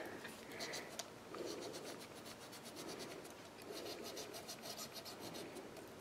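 Faint, irregular rubbing and scratching of a stylus worked round paper flower petals on a mat, shaping them so they curl up.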